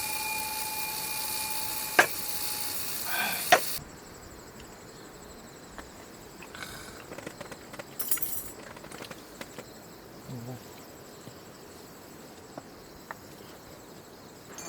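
Steady sizzling hiss of food cooking, with two sharp clicks, cut off abruptly almost four seconds in; after that, quiet outdoor background with scattered small clicks and taps.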